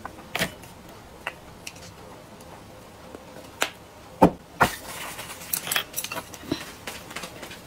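Small clicks and taps of condiment bottles being uncapped, shaken and set down on the table. There is one sharp knock about four seconds in, then a run of light clicks and clinks.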